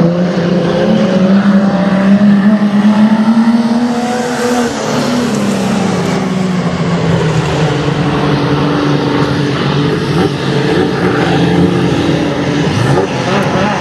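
Several six-cylinder speedway sedans racing on a dirt oval, their engines running hard together. The leading engine note climbs over the first few seconds and falls away about five seconds in as the cars lift for the turn, and the others carry on steadily.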